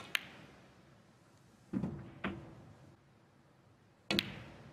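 Snooker shot: the sharp click of the cue tip on the cue ball, then the click of the cue ball hitting an object ball just after. A duller knock and another click come a little under two seconds in, and another pair of sharp ball clicks comes near the end.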